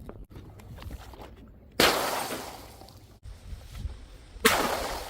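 Two glass bottles shattering, each a sudden crash whose breaking glass dies away over about a second, the second coming nearly three seconds after the first.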